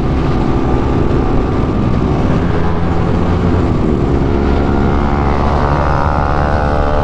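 200 cc single-cylinder motorcycle engine running steadily at highway speed, its note climbing gently in the second half.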